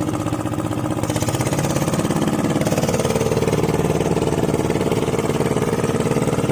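A small engine running steadily under the vehicle carrying the hunters, picking up a little about a second and a half in.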